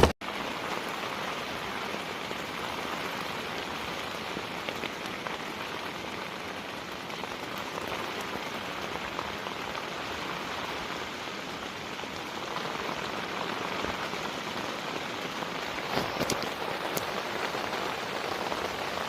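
Steady rain falling, an even wash of drops, with a couple of faint taps near the end.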